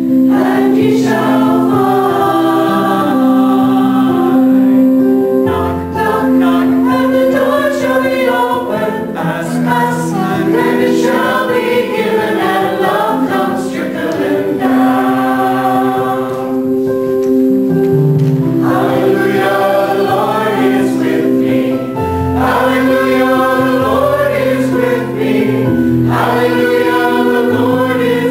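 Choir singing a hymn over sustained instrumental chords, with the low notes changing every few seconds.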